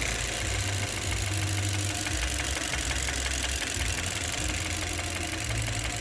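2018 Chevrolet Cruze 1.4-litre turbocharged direct-injection four-cylinder engine idling with a misfire: the cylinder 1 injector is not firing, and is judged bad.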